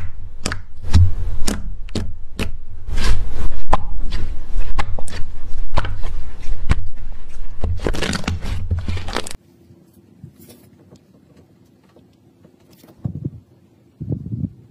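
Slime being poked and squeezed by hand, giving a rapid series of sharp pops, clicks and crackles. The sound cuts off suddenly about nine seconds in, leaving only faint handling and a couple of soft thuds near the end.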